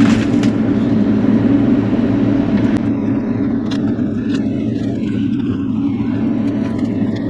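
Bobcat E42 mini excavator's diesel engine running steadily under load, with a rushing noise that dies down about three seconds in and a few sharp snaps after it.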